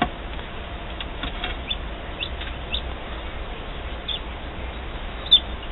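Newly hatched chicken chicks peeping inside an egg incubator: scattered short, high peeps, the loudest one near the end, over a low steady hum. A single click right at the start.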